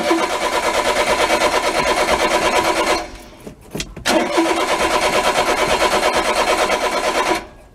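Mitsubishi Minicab's starter motor cranking the 3G83 engine in two runs of about three seconds each with a short pause between, each cut off without the engine catching: a cranks-but-won't-start condition.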